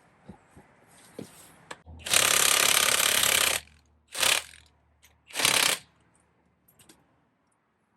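Impact wrench run in three bursts: one long run of about a second and a half, then two short ones.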